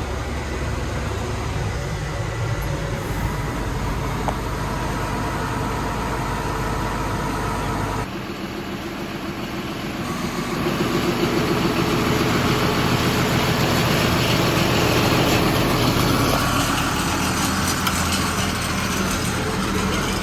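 A motor vehicle's engine running steadily, with noise that grows louder from about ten seconds in.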